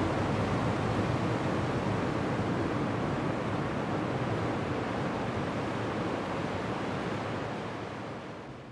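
Steady rushing of ocean surf, an even wash of noise with no distinct breaks, fading out at the very end.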